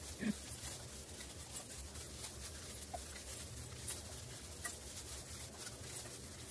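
Faint scattered small clicks and scrapes of gloved fingers working over halved jalapeños, scooping out the seeds, over a low steady room hum.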